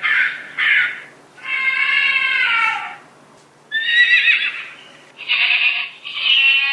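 Recorded animal calls played one after another from a children's sound book's sound buttons: two short crow caws at the start, then four longer animal calls.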